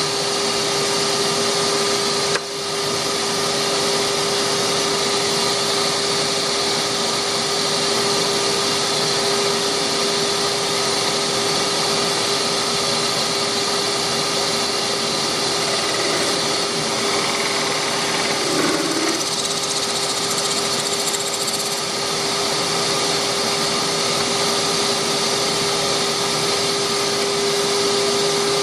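Workshop machinery running steadily: an even whir and hiss over a constant hum, with a brief dip about two seconds in.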